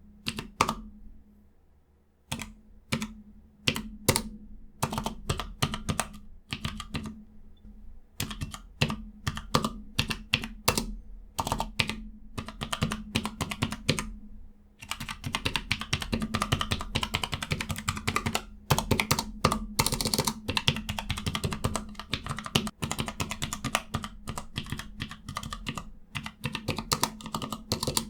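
Cherry ML key switches on a Cherry G84-4700 mechanical numpad being typed on, with a clicky clack at each press. Single key presses come with short pauses at first, then turn into rapid, continuous typing about halfway in.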